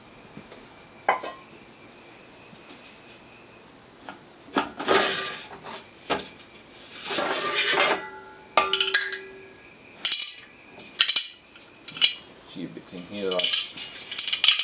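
Sheet-metal parts of a Rolls-Royce Viper jet engine combustor clanking and scraping against each other and the steel workbench as the perforated flame-tube liner is pulled from its casing, with ringing metal tones. A few quiet seconds come first, then the clatter, then several sharp knocks.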